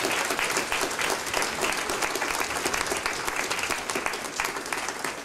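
Audience applauding, many hands clapping at a steady level throughout.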